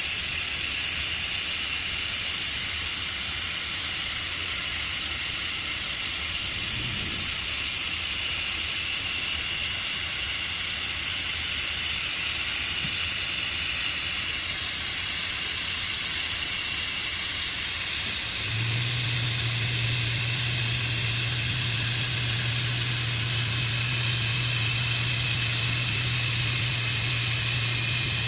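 Steady hiss of a robotic welding arc, with a low steady hum joining about two-thirds of the way through.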